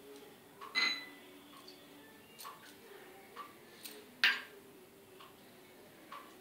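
A handful of light clinks of a steel spoon and small glass bowls against a glass mixing bowl, one ringing briefly about a second in and the sharpest about four seconds in.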